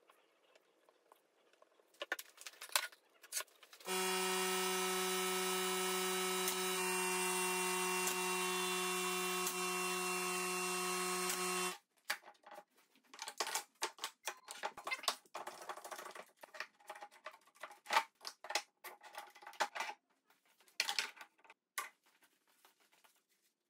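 A steady hum with several held tones starts abruptly about four seconds in and cuts off about eight seconds later. It is followed by many quick irregular clicks and knocks as one-handed bar clamps are ratcheted tight and set on a glued-up wooden panel.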